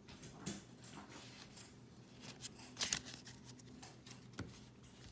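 Pokémon trading cards being handled and slid against one another: scattered soft scrapes and light taps, a sharper scrape about three seconds in.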